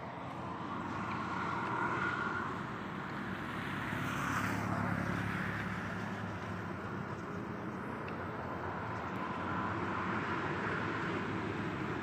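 Road traffic passing, engine and tyre noise swelling and fading in waves, loudest around four and a half seconds in and again near the end.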